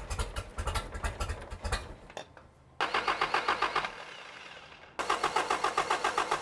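Toyota 22RE four-cylinder engine turned over by its starter in three bursts with short pauses between, cranking with a fast, even pulse but not catching. The no-start is later traced to a replacement fuel pump that gave too little fuel pressure.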